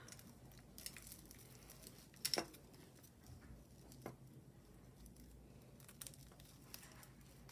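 Faint clicks and rustles of a tangle of jewelry chains and beads being picked apart by hand, with one sharper click about two seconds in.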